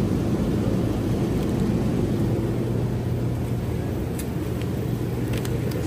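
Steady low hum of a supermarket's refrigerated display cases and ventilation, with a couple of faint clicks from the plastic-wrapped sausage tray being handled.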